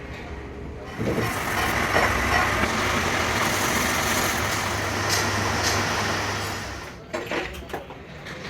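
A vehicle running close by, a steady hissing rumble with a low hum that starts about a second in and fades away near the end, followed by a few short clicks.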